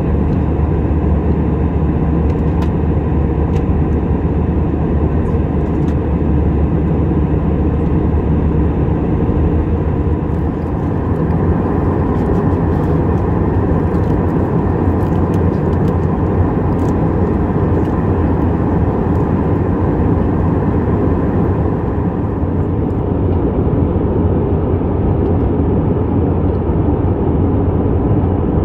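Steady cabin noise inside an Airbus A319-112 airliner in flight: the even low rumble of its CFM56 turbofan engines and the airflow over the fuselage, heard from a window seat over the wing, with a faint steady hum above it.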